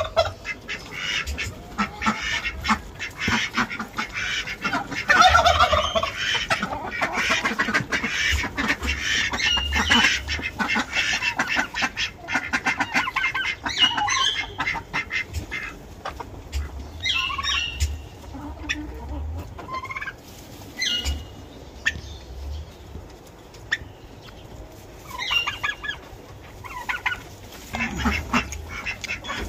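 A flock of chickens clucking and calling in a poultry house, many overlapping calls at first, thinning to scattered separate calls in the second half, over an intermittent low rumble.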